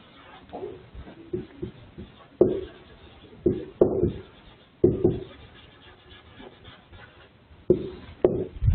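Whiteboard marker scratching and squeaking across the board in short, uneven strokes as words are handwritten.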